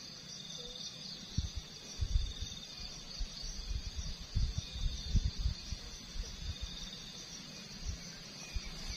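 Insects chirping steadily in a high, pulsing trill. Irregular low rumbling bumps come and go through the middle.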